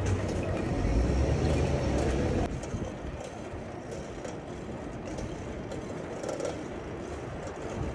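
Street traffic: a heavy vehicle rumbling past loudly, falling away about two and a half seconds in to a steadier, quieter traffic noise.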